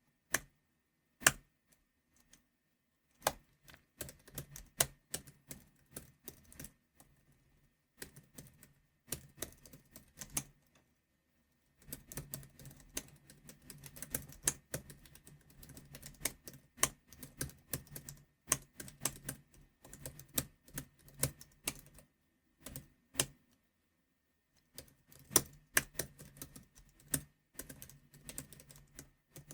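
Typing on a computer keyboard: bursts of rapid keystrokes broken by short pauses, the longest and densest run through the middle. Two single hard key strikes come near the start, the second, about a second in, the loudest click of all.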